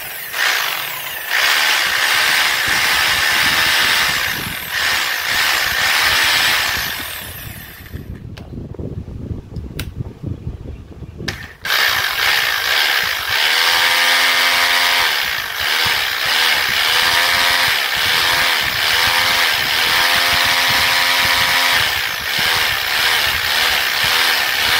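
The electric motor of a Planet Power PH26RE 26 mm hammer drill, running on a test after its forward/reverse switch has been repaired. It runs, winds down about eight seconds in, and starts again sharply about three seconds later, its pitch wavering as the speed changes.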